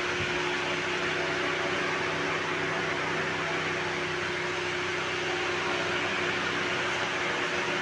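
Steady machine hum with an even hiss, unchanging throughout.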